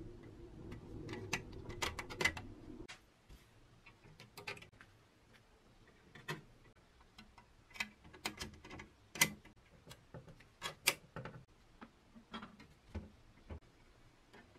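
Irregular small metallic clicks and taps of painted sheet-metal toy airplane parts and tiny screws being handled and fitted together. A low steady hum stops abruptly about three seconds in.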